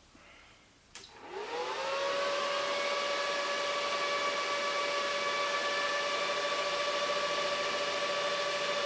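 Server power-up: a click about a second in, then its cooling fans spin up with a rising whine that levels off into a steady, loud high whine with fan hiss as the machine starts.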